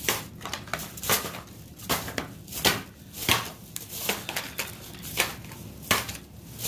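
Clear plastic bag crinkling and rustling in irregular crackly bursts as it is handled and items are put into it.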